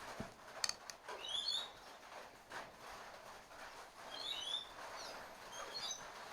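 Birds chirping in short clusters of high notes, three times. There are a couple of sharp clicks about half a second in.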